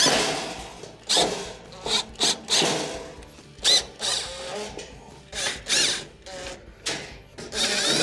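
Cordless drill/driver with a Phillips bit running in a series of short bursts, driving screws into a range's sheet-metal back panel.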